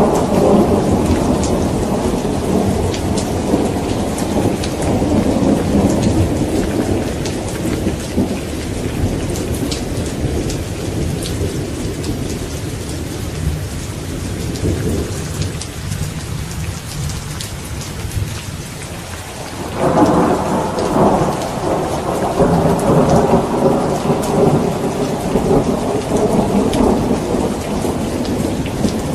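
Steady rain falling through a thunderstorm, with rolling thunder. One long rumble fades away over the first half. Another clap breaks suddenly about two-thirds of the way in and rumbles on.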